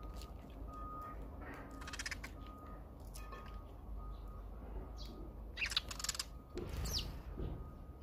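Wild birds at a seed feeder giving a few short, harsh calls: one cluster about two seconds in, then more around six and seven seconds.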